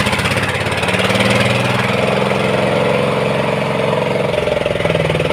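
An engine running steadily at low revs with a fast, even pulse; its tone shifts slightly about halfway through.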